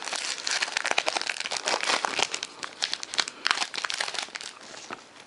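Trading-card pack wrapper being crinkled and torn open by hand: a dense run of crackles that thins out near the end.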